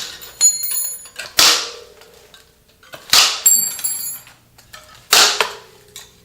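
Old dirtbike wheel spokes being cut through one after another: four sharp metallic snaps, each followed by a brief high ringing from the freed spoke.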